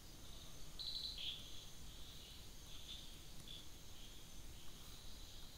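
Faint high-pitched animal chirping in the background, a few short chirps scattered through, one about a second in, over low steady background noise.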